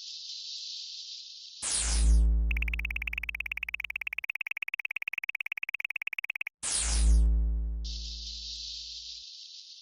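Synthesized game sound effects for a cat video: a hissing rustle stops, then a low electronic tone with a bright downward sweep comes in about a second and a half in. A rapid pulsing buzz follows for about four seconds, a second low tone starts about six and a half seconds in, and the hissing rustle returns near the end.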